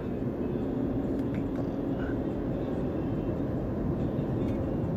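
Vehicle driving at highway speed, heard from inside the cab: a steady rumble of engine and tyre noise on the road.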